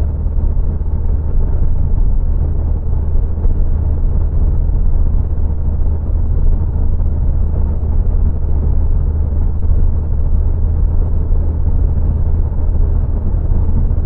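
Steady low rumble of road and engine noise inside the cabin of a Nissan Juke Nismo with its 1.6 DIG-T turbo engine and X-Tronic CVT, cruising at about 120 km/h.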